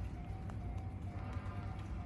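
Japanese level-crossing alarm ringing one repeated tone, about two strikes a second, over the deep, steady rumble of a JR Saikyo Line train at the crossing.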